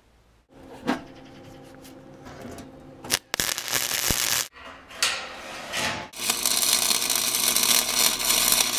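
Flux-core wire-feed welder's arc crackling on thin sheet steel: short runs from about three seconds in, then one continuous bead from about six seconds on. Before the arc strikes there is a steady hum with a single knock.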